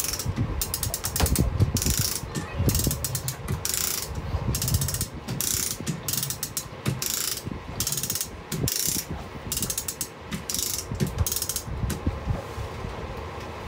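Half-ton ratcheting come-along chain hoist worked by hand in a series of strokes, its pawl clicking rapidly on each stroke, as it lifts an inboard marine engine off its mounts. The strokes stop near the end.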